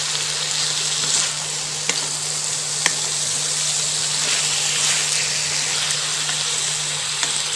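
Pork, broccoli and carrot sizzling in a hot pan while a wooden spatula stirs them, with a few sharp clicks as the spatula knocks the pan. A steady low hum runs underneath.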